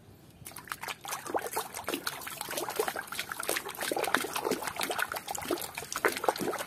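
Hands washing plastic toy animals in a basin of water: irregular splashing and sloshing, starting about half a second in.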